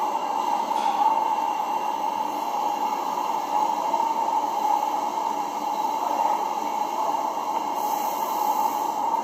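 Steady noise: an even hiss with a constant tone running through it, with no distinct events.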